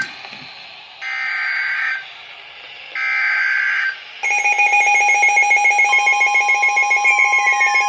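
Two one-second bursts of Emergency Alert System data tones from a weather radio, a second apart: the end-of-message signal closing a warning. About four seconds in, a loud electronic alert alarm starts. It is a steady pulsing tone with a second tone joining about two seconds later and higher tones sliding downward.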